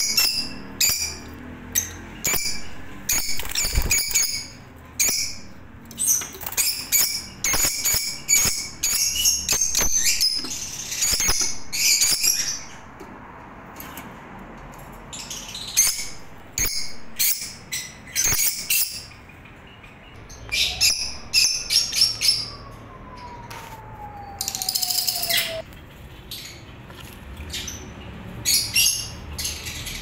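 Rosy-faced lovebirds chirping: shrill high calls in quick runs, broken by a few short pauses.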